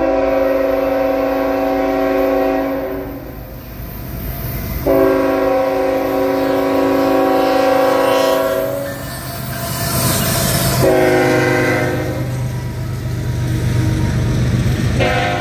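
Diesel freight locomotive's air horn sounding two long blasts, a short one and the start of another long one: the long-long-short-long grade-crossing signal. Underneath is the low rumble of the locomotives and the train's wheels running past.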